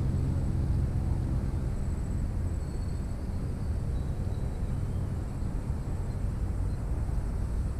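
A steady low engine-like rumble, its hum clearest in the first two seconds, with a faint thin high tone throughout.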